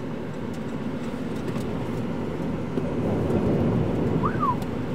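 Severe dust-storm wind buffeting a vehicle, heard from inside the cab as a steady low rumbling roar that swells in the second half. A brief squeak comes about four seconds in.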